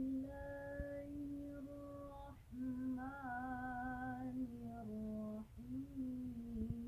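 A girl's voice reciting the Quran in the melodic, drawn-out tilawah style, holding long sustained notes with a wavering ornament about three seconds in and pausing for breath twice.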